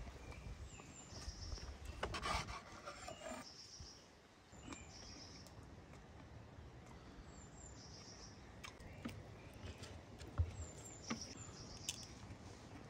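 A songbird singing a short high phrase, repeated every couple of seconds. About two seconds in comes a brief clatter and scrape of grilled meat and a knife being handled on a wooden board, followed later by a few light clicks.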